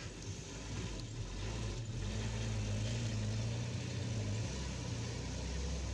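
An engine running steadily at idle, a low hum that grows louder about two seconds in.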